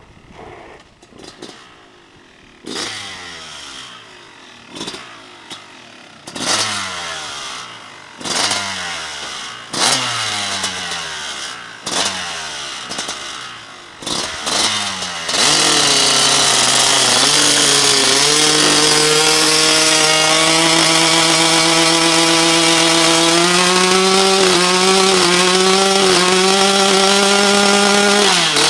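Two-stroke dirt bike engine revving in short bursts every second or two as it rides up. About halfway through it is held at high revs in one loud, steady howl that climbs in steps, then drops back right at the end.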